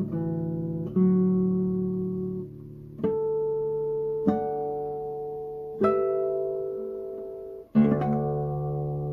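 Handmade nylon-string classical guitar, a Hermann Hauser model with a European cedar top, playing a slow hymn arrangement: plucked chords struck every second or two, each left to ring and fade, the last one struck near the end and still ringing.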